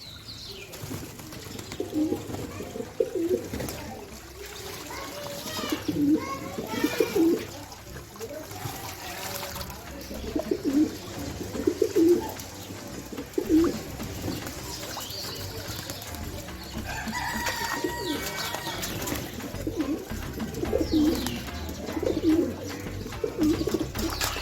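Pigeons cooing: short low coos repeated every second or two, with a few higher chirps mixed in.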